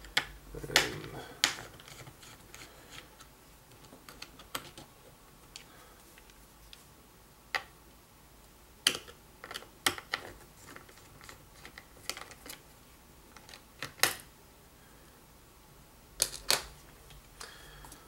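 Scattered small clicks and taps of a precision Phillips screwdriver working the screws of the hard-drive retaining bracket inside a 2012 MacBook Pro's aluminium case, the tool knocking on metal now and then.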